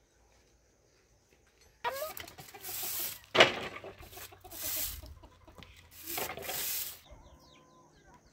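Chickens clucking over a series of long rasping scrapes that start after about two seconds of near silence, with one sharp knock in the middle.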